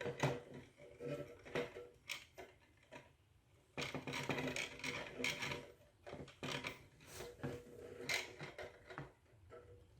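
Irregular plastic clicks and rattles of a small 3D-printed rubber-band car with CD wheels being wound up by hand, the rubber band twisting round the skewer back axle, with a denser run of clatter about four seconds in.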